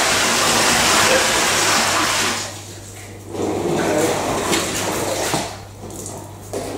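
Water gushing from a hose into a flood-test tank: a loud, even rushing that drops away about two and a half seconds in, followed by lower splashing and gurgling that comes and goes, over a steady low hum.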